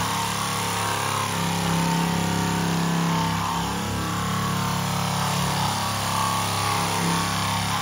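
Air-powered orbital sander running steadily against the painted sheet-metal hood of a Peterbilt 359, a constant hum over a broad hiss.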